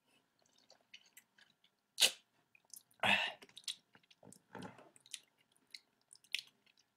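A person chewing and sucking on a lime wedge: small wet mouth clicks, with two louder mouth noises about two and three seconds in.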